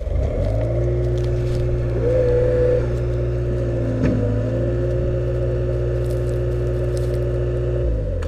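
An engine running steadily, with a brief knock about four seconds in; it cuts off abruptly shortly before the end.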